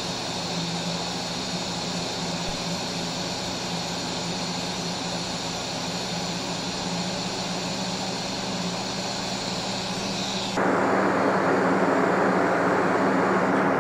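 TIG welding arc from a Tweco Fabricator 141i inverter welder: a steady hiss with a low hum and a thin high whine. About ten and a half seconds in it cuts off abruptly, giving way to a louder, steady rushing noise.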